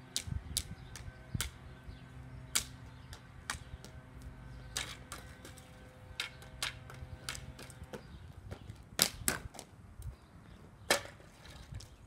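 Hockey stick hitting a ball over and over: irregular sharp taps of stickhandling and juggling, with a few harder knocks among them.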